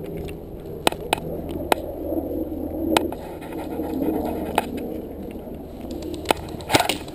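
Single airsoft gun shots, sharp cracks at irregular intervals over a low rustling of movement and gear.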